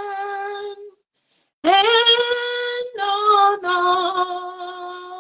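A woman singing a slow worship chant unaccompanied, drawing out long held notes. A held note ends about a second in, and after a short pause she sings 'and' and holds a long note.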